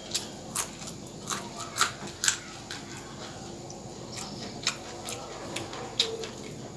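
A person eating veg chowmein with raw green chillies: irregular crisp chewing and crunching clicks, about a dozen, with a gap in the middle.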